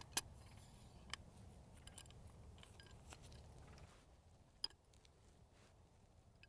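A few faint, scattered metal clicks and taps from an increment borer being handled: its clip undone and the handle used to work the extractor free.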